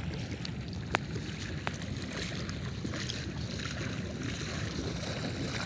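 Wind rumbling on the phone's microphone over shallow seawater, with soft water sounds from wading. Two sharp clicks, about one second in and again just under a second later.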